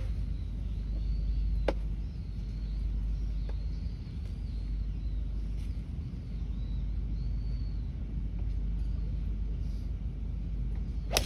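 Steady low outdoor rumble with faint bird chirps and a single small click about two seconds in. Near the end comes one sharp, ringing crack: a golf club striking the ball on a tee shot.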